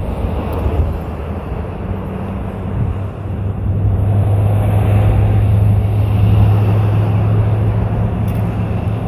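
An engine running with a steady low hum that grows louder about four seconds in, over wind buffeting the microphone.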